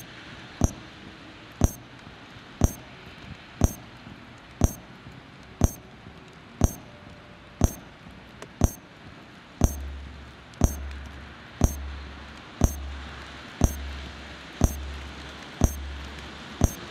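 Sparse synthesized electronic sound: a sharp, bright click about once a second. From about ten seconds in, a deep bass pulse sounds with each click.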